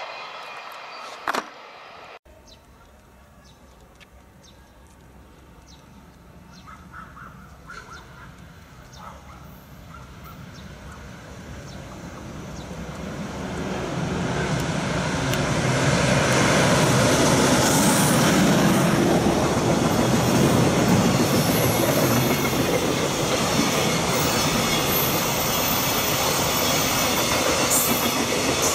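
An EH500 electric freight locomotive approaching and passing, growing steadily louder from about halfway through, then its loaded container wagons rolling by with a steady rumble of wheels on the rails.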